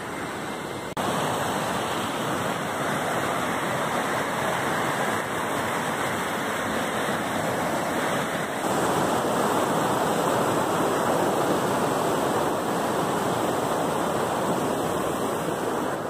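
Mountain river rushing over boulders in white-water rapids: a steady rush of water, louder from about a second in.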